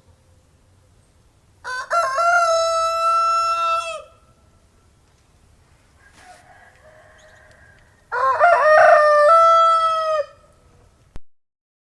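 Rooster crowing twice, each crow about two seconds long, breaking in pitch at the start and ending on a long held note.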